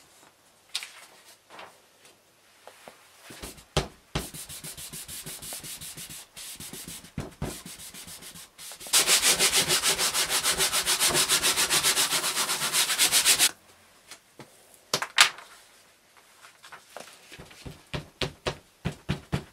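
A baren rubbed quickly back and forth over paper laid on a sheet of plywood, pressing a photocopy face-down onto the wood to transfer the image. The rubbing starts light, then grows much louder and faster for about four and a half seconds midway, and after that gives way to scattered taps and paper handling.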